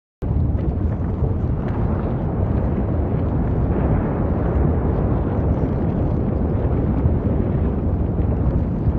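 Continuous low rumble of an erupting volcano, steady and loud with no separate blasts.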